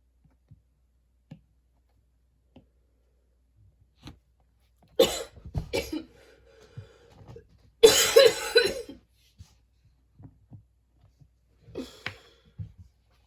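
A person coughing: two harsh coughs about five seconds in, a longer, louder fit of several coughs about eight seconds in, and a short cough near the end, with faint clicks in the quiet stretches between.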